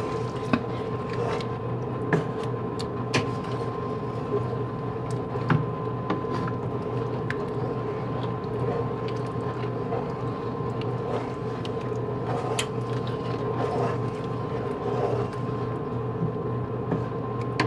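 Wooden spoon stirring a thickening cream sauce in a skillet, with scattered light scrapes and taps against the pan, over a steady machine hum with a faint high tone.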